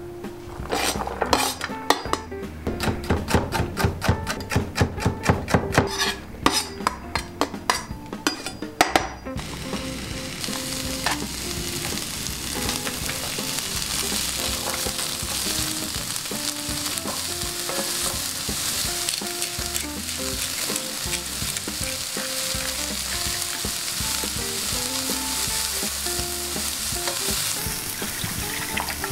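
A knife chopping on a plastic cutting board, a few quick cuts a second, for about the first nine seconds; then diced onion, celery and carrot sizzling steadily in butter in a frying pan, stirred with a wooden spatula.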